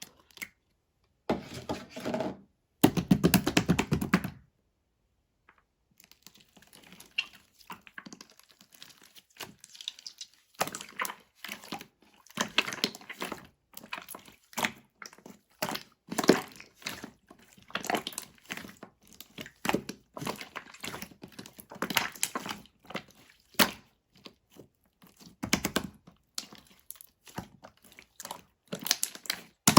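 Close-up crunching and crinkling of a small light-green crystal-textured round object being squeezed and handled. Two louder crunching squeezes come early, then a pause, then a long run of short crackles and pops.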